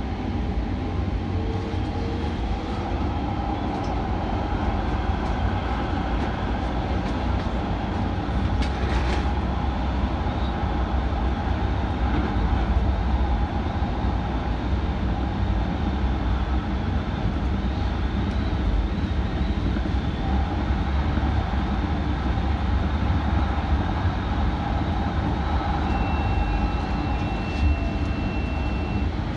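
Kinkisharyo P3010 light rail vehicle running along the track, heard from the front of the car: a steady low rumble of wheels and running gear with faint steady high tones over it. There is a short sharp clack about nine seconds in and a brief high steady tone near the end.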